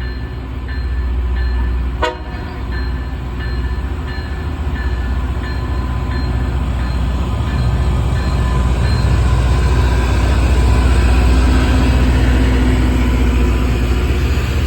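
Railroad crossing bell ringing at a steady pace of a little over once a second over the heavy low rumble of a Loram rail grinder train. The rumble and the hiss of grinding swell from about eight seconds in as the grinder draws nearer, with one sharp click about two seconds in.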